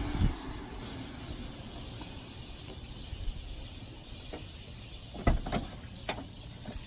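Quiet outdoor street background, then a few sharp clicks and knocks about five to six seconds in as a car door is unlatched and swung open.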